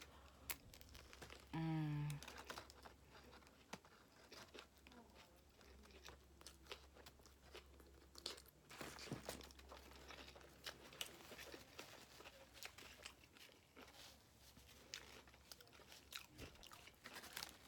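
Close-up chewing of a sandwich: faint, scattered crunching and wet mouth clicks, with a brief hummed voice sound about two seconds in.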